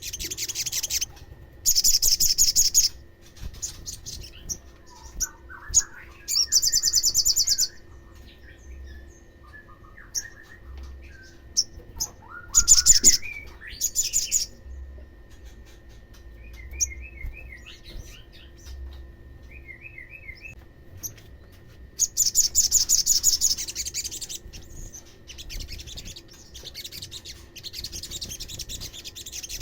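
Olive-backed sunbird singing: loud, rapid, high-pitched trills of one to two seconds, repeated several times, with quieter short chirps and twittering between them.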